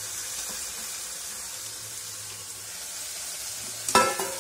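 Mutton frying in oil in an open pressure cooker, a steady sizzle as tomatoes, green chillies, mint and coriander are tipped in. A sharp metallic clink near the end.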